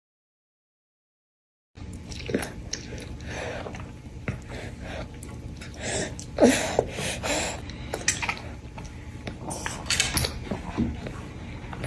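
A person biting and chewing an orange with its peel on, in irregular bites and chews that begin after nearly two seconds of silence, with a few louder bites around the middle.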